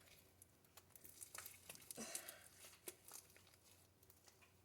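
Slime being pulled and stretched by hand and sliding back into its container: faint, scattered soft crackles and small clicks, busiest around the middle.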